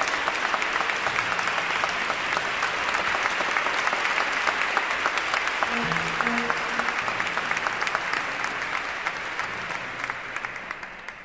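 Audience applauding, a dense clatter of many hands clapping that fades away near the end.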